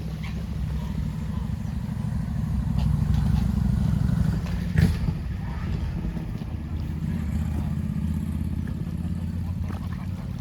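Low engine rumble of a motor vehicle passing, swelling to its loudest a few seconds in and then easing off, with a single sharp click around the middle.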